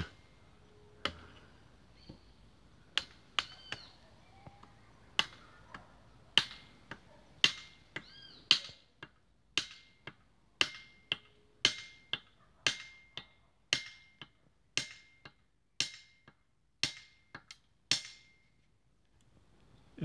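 A series of sharp, short knocks, roughly one or two a second, like something hard being struck, with a few faint high chirps between them.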